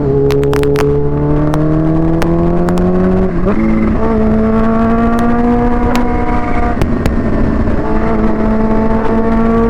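Supercharged Kawasaki Ninja H2 inline-four with a Vandemon exhaust, pulling under throttle while ridden. The engine note climbs steadily, breaks briefly a little over three seconds in as it changes gear, then holds at a nearly steady higher pitch. Wind noise on the rider's microphone runs underneath.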